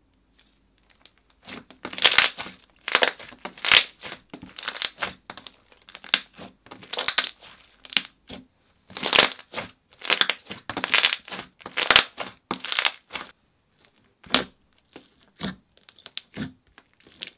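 Hands squishing and kneading thick white slime, a quick irregular run of crackling squelches that thins out near the end as fingers poke into it.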